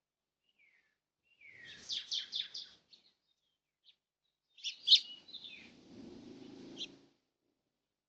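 Bird calling in two short bursts of quick, high chirps. The second burst, about five seconds in, is the louder, and a low rustling runs under it.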